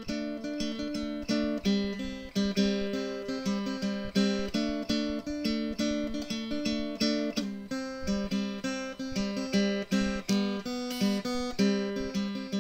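Background music: acoustic guitar played in quick plucked and strummed notes.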